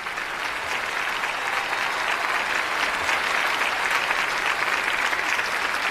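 Theatre audience applauding, building up over the first second and then holding steady.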